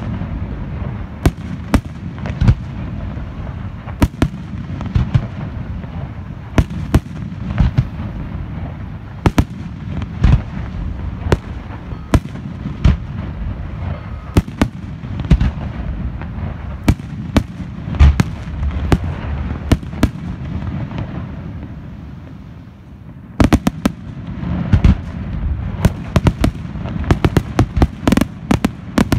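Aerial firework shells launching and bursting: a continuous low rumble of booms with frequent sharp cracks. It eases off briefly about three-quarters of the way through, then a dense run of rapid reports follows near the end.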